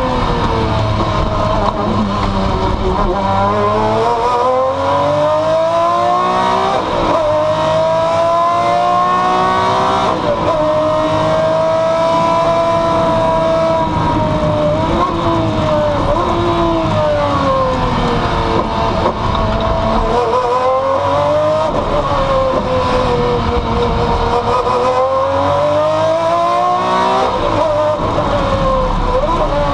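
Maserati MC12 Corsa's V12 engine at racing speed, heard from inside the cockpit. Its pitch climbs and drops sharply at each upshift a few times, holds steady for a few seconds, then falls away and climbs again twice more.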